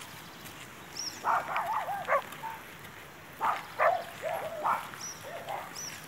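A dog barking in two bouts of quick barks a couple of seconds apart, with a few brief high bird chirps.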